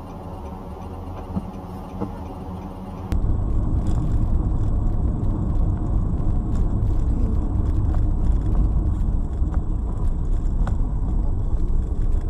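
Vehicle running as heard from inside: a steady engine hum, then about three seconds in an abrupt switch to louder, rough road and tyre rumble with scattered light knocks.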